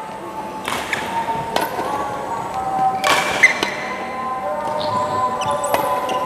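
Background music with several sharp badminton racket hits on a shuttlecock, spaced a second or two apart, as the player returns shuttles in a defence drill.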